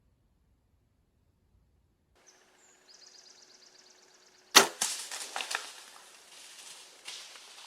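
A bow shot: one sharp, loud crack of the string and arrow about four and a half seconds in, after faint high chirping. It is followed by a run of crackling and rustling through dry leaves and brush, the sound of the hit deer running off.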